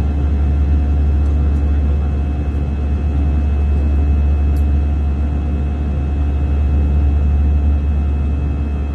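Steady low rumble of an Airbus A320 airliner's cabin in flight, heard from a passenger window seat, with faint steady hum tones above it.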